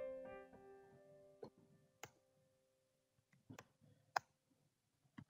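Very quiet background music with held notes fading out in the first second or so, then about six faint, scattered computer-keyboard key clicks as commands are typed.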